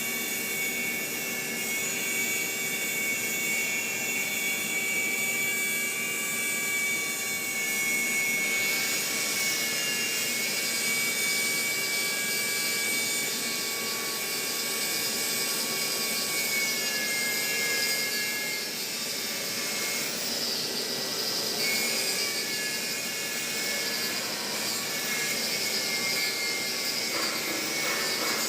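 Electric arc welding running steadily: a continuous hiss with a thin high whine that drifts slightly in pitch.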